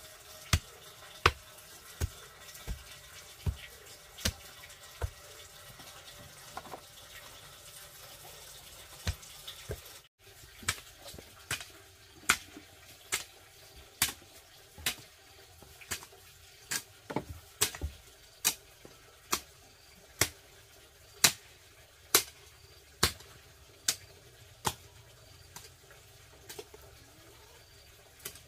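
Repeated sharp knocks or strikes, spaced unevenly at first and then coming about once or twice a second, with a brief break about ten seconds in.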